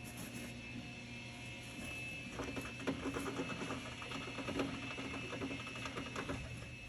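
Small pet gnawing at its cage, a fast run of short clicking, scraping bites that starts a little over two seconds in, over a steady background hum.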